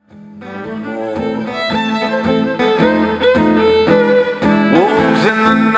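Live fiddle and acoustic guitar playing the instrumental opening of a folk song. The music fades in over the first second, and near the end the fiddle slides up into its notes.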